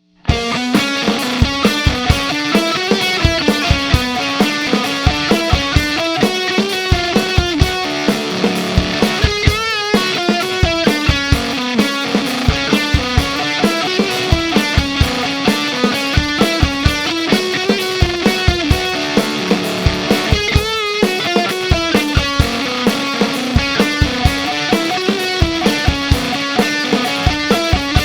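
Electric guitar through a ZVex Fuzz Factory 7 fuzz pedal and a Marshall JCM 900 amp, playing a repeating heavy riff over a drum kit. The riff comes round over and over, with a brief wavering fuzz sweep about ten seconds in and again about twenty-one seconds in.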